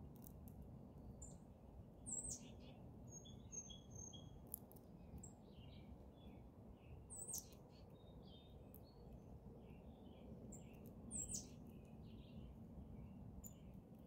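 Small wild birds chirping and calling, faint. A high down-slurred call stands out three times, a few seconds apart, among scattered short chirps, over a low steady background rumble.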